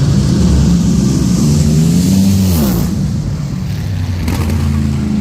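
Race car engine running at a drag strip, its pitch dropping sharply about two and a half seconds in, with a steady engine drone underneath.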